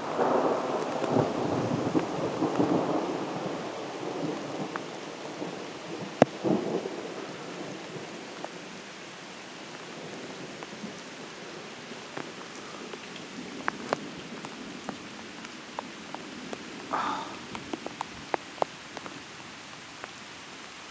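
Thunder rumbling through the first few seconds and fading out over steady heavy rain. Scattered sharp raindrop ticks sound throughout, with a loud one about six seconds in.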